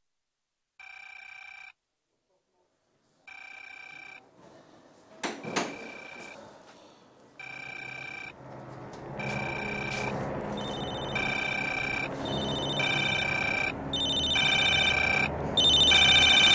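Office telephones ringing in rings of about a second. At first they come a couple of seconds apart, then closer together and louder. From about ten seconds a second, higher ring overlaps them, with a low hum building underneath.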